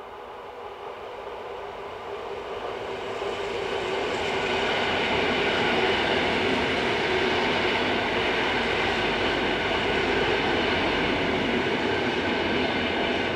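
Electric multiple-unit train approaching and passing close by, the rumble of its wheels on the rails growing loud from about four seconds in and staying loud as the cars go past, with a steady high whine over it.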